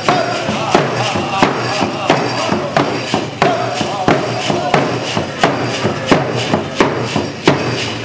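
Several rawhide hand drums struck with beaters in a steady, even beat, about two to three strokes a second, with a group of voices singing over them.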